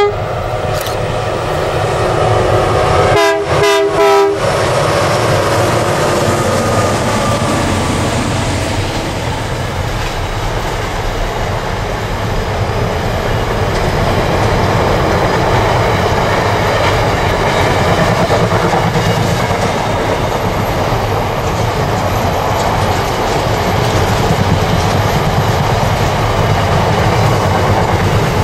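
SCT-class diesel locomotives sound two short horn blasts about three seconds in while working a long intermodal freight train. The train's wagons then run past close by, wheels rumbling steadily on the rails.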